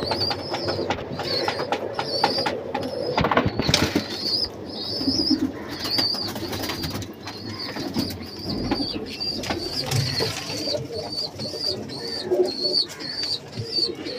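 Domestic pigeons cooing in a loft, with scattered wing flaps and shuffling. Over it, a short high chirp repeats about once or twice a second.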